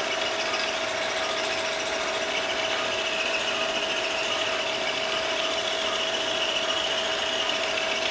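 Motorized arthroscopic handpiece running steadily, a constant high whine over a steady hum.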